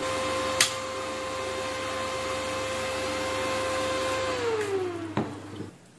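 Inverter welding machine switched off with a click about half a second in. Its steady hum and whine carry on for a few seconds, then the whine slides down in pitch and dies away as the machine winds down.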